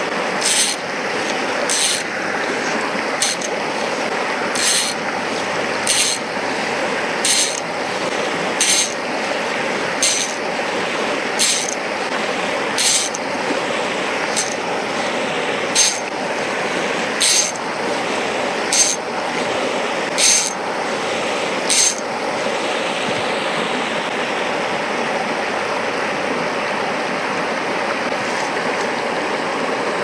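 A fly reel's ratchet buzzing in short pulls, about sixteen of them evenly spaced every second and a half, as line is drawn off the spool; the pulls stop about two-thirds of the way in. Under it, the steady rush of the shallow stream.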